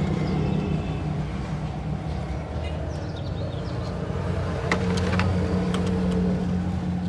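Toyota 2NZ four-cylinder petrol engine idling steadily, with a few sharp metallic clicks about five seconds in.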